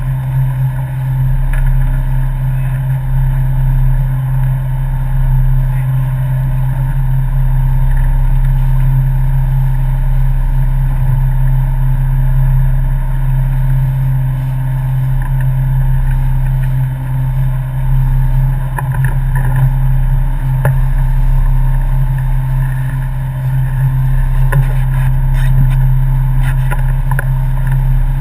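Motorboat engine running at a steady speed, a constant low drone with no change in pitch.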